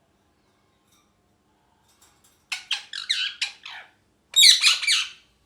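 Ringneck parrot squawking in two quick bursts of rapid chattering calls, the first about two and a half seconds in and the second a moment later.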